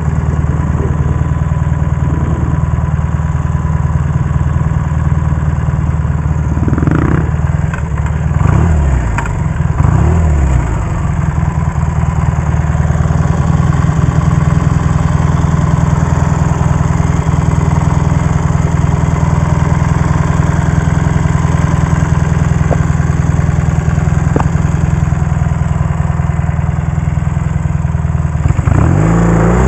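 1967 Triumph Bonneville T120R's 650 cc parallel-twin engine running. Its revs fall and rise a few times in the first ten seconds, then hold steady for most of the rest, with another change of revs near the end.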